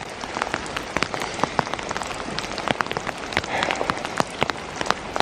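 Steady rain falling, with many sharp single drop hits close by scattered irregularly through the hiss.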